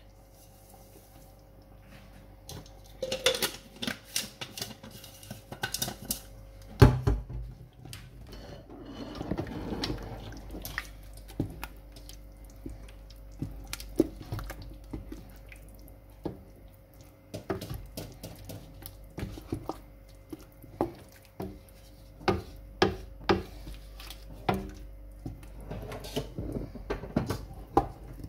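Wooden spoon knocking and scraping against a large metal cooking pot while stirring a thick groundnut paste, with irregular sharp knocks throughout; the loudest knock comes about seven seconds in.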